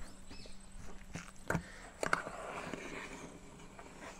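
Serving spoon clinking and scraping against a metal pressure cooker while scooping out rice: a few sharp clicks, the clearest about a second and a half and two seconds in, with soft scraping between them.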